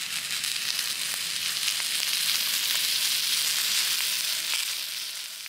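Sausage sizzling and crackling as it fries, a steady hiss with fine spitting ticks.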